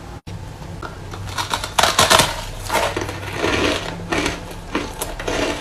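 Close-up chewing of a mouthful of powdery crushed frozen ice: rapid crisp crunching and crackling, loudest in a burst about two seconds in.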